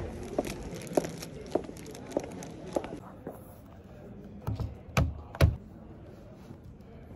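Footsteps on a hard wood-block floor at a steady walking pace. A few seconds in they stop, and a closed laptop is set down on a table with a few light knocks, then two louder knocks.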